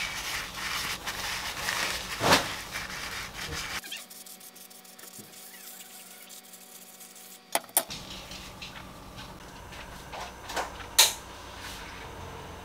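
Kitchen handling sounds from a takoyaki pan on a gas stove as it is oiled and batter is poured in: scattered light knocks and clinks of the pan and utensils. There is a louder knock about two seconds in and another near the end.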